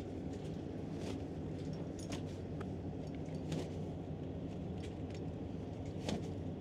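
Boat engine running steadily, a low even hum, with scattered faint clicks and knocks.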